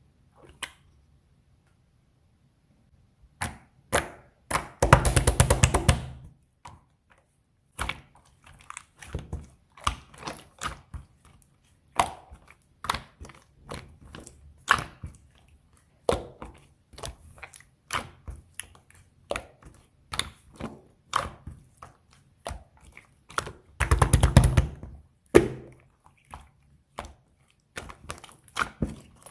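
Pink strawberry-milk slime being pressed and squished by hand, making irregular sticky pops and clicks, with two runs of rapid popping about five seconds in and again near the end.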